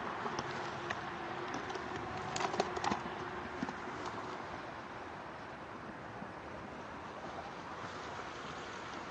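Steady background noise, with a brief cluster of sharp clicks and knocks about two and a half seconds in.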